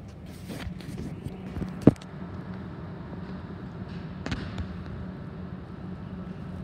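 Handling knocks and clicks from a camera phone being moved against a window, over a steady low hum. There are several small clicks, then one sharp knock about two seconds in, which is the loudest sound, and another knock a little past four seconds.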